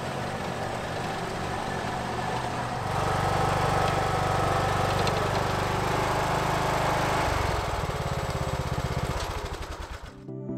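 Ride-on lawn tractor engine running steadily under load while it pushes a snow plow blade through snow. Soft music comes in near the end.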